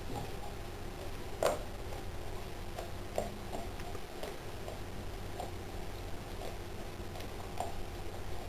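Boxer dog chewing a raw fish: irregular soft clicks of teeth and mouth, the loudest about a second and a half in.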